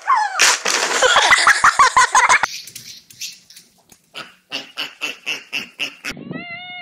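A person's loud, choked vocal outburst lasting about two seconds. Then a cat gives a run of short, quick cries, about four a second, and one long meow near the end.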